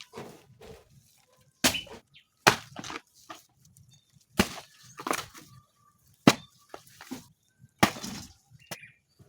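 Series of sharp cracking knocks, roughly one a second at an uneven pace, each followed by a brief crackle, like ingredients being chopped or broken up by hand.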